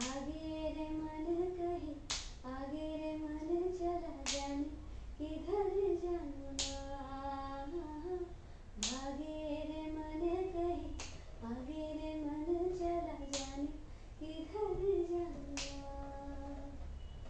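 A woman humming a tune in short melodic phrases, keeping the beat with a single sharp clap about every two seconds.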